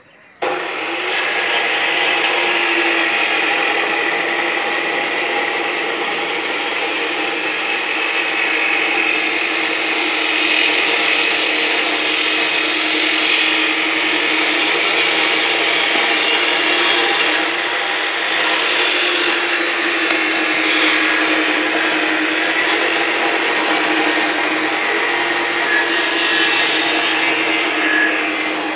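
A power tool running steadily: a loud, harsh hiss with a steady motor tone over it, starting abruptly about half a second in.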